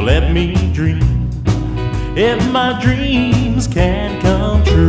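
Background music: a country-style song with a steady beat, a bass line and sliding melodic lines.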